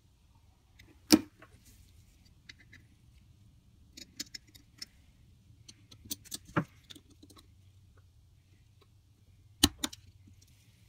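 Small metal clicks and clinks of steel knife blades, spring and brass liners being handled and fitted together: one sharp click about a second in, a few small clusters of clicks in the middle, and two clicks near the end, over a faint low hum.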